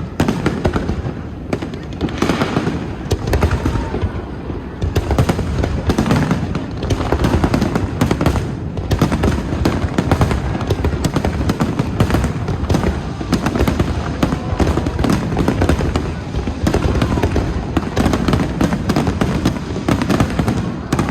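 Fireworks finale: a dense, unbroken barrage of bangs and crackling shell bursts, many overlapping every second.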